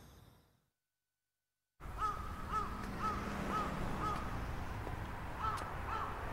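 Sound fades out to about a second of dead silence, then crows caw: a run of about five calls, two a second, and two more near the end over a low background hum.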